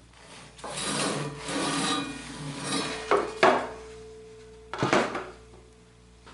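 Table saw rip fence being slid along its rail and set, with wood rubbing and scraping, then three sharp knocks as it is clunked into place.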